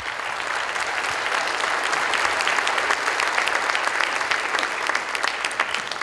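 Audience applauding: many hands clapping together, rising quickly at the start and then holding steady.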